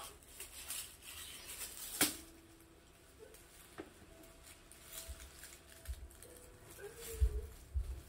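Small scratching and tapping on a corrugated cardboard cat scratcher as a cat claws and bites at a toy on it, with a sharp click about two seconds in and a few dull thumps near the end.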